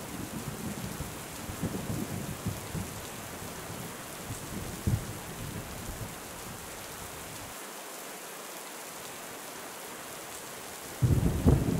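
Thunderstorm: steady rain hiss with low rolling thunder that dies away over the first half, leaving only rain. Near the end a loud peal of thunder breaks in suddenly and rumbles on.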